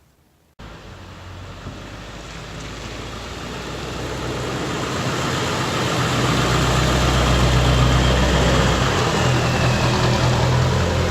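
A vehicle engine running with a steady low drone. It grows louder over the first five seconds or so, then holds steady.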